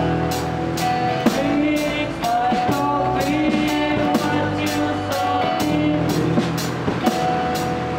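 Acoustic band music: strummed acoustic guitars over a steady beat played with sticks on a small drum kit with cymbal.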